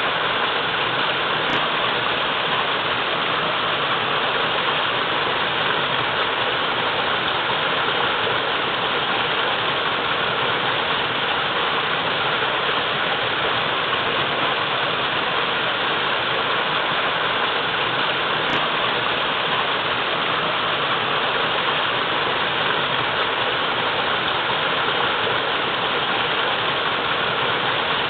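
Waterfall pouring steadily into a pool, a constant even rush of water.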